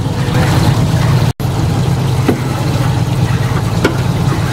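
Boat engine running with a steady low drone, under a hiss of wind and water; the sound cuts out completely for an instant about a second and a half in.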